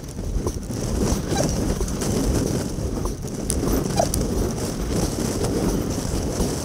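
Wind buffeting the microphone and water rushing along a racing double scull, with scattered clicks and splashes from the sculling oars, all played back at four times speed.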